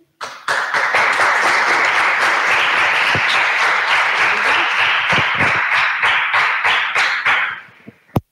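A small group applauding, starting about half a second in and dying away near the end, followed by a single sharp click.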